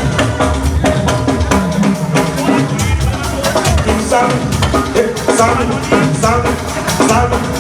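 Live church praise band playing an instrumental break with a busy drum kit and percussion pattern over keyboard or guitar.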